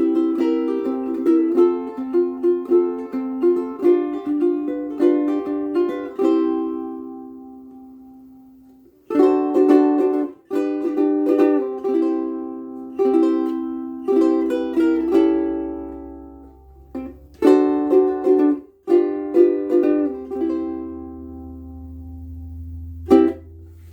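Solid mahogany Blue Wing concert ukulele playing a tune on worn, frayed Martin M600 strings. The notes ring out and fade to a pause about a third of the way in, then the playing starts again and carries on to near the end.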